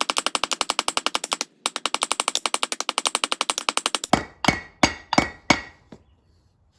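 Metal hammering on the rivets of a truck brake lining: a fast run of about fifteen blows a second, broken once briefly, then slowing to five single hammer blows before stopping. This flares the rivets over to fix the lining to the brake shoe.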